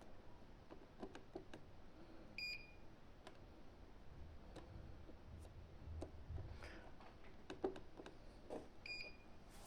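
Access-control keypad keys pressed with soft clicks, and two short, quiet key beeps, one a couple of seconds in and one near the end: the keypad's beep volume has been turned down.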